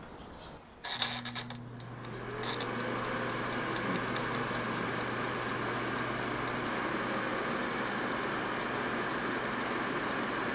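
Electric air fryer starting up. A few clicks about a second in as its timer dial is turned, then its fan motor spins up with a rising whine and runs on with a steady whir of blowing air.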